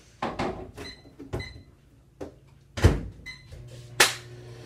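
A microwave oven being loaded and started: several knocks and thunks from the door and keypad, a few short high beeps, then a steady low hum as it starts running.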